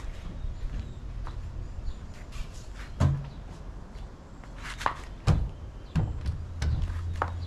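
Plywood panels knocking and thumping against a plywood cabinet as they are handled and fitted, about six sharp knocks with the loudest about halfway through.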